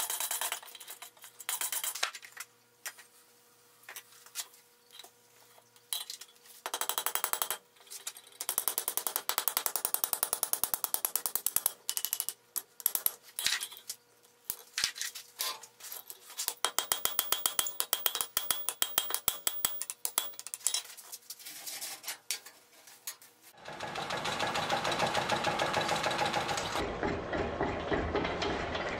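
A blacksmith's hand hammer striking red-hot iron on an anvil, in runs of quick blows with short pauses. About three-quarters of the way through, a mechanical power hammer takes over, pounding the hot iron rapidly and steadily.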